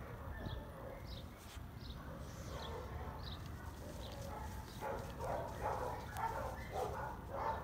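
Short high chirps about once a second, then from about five seconds in a dog barking rapidly, several barks a second.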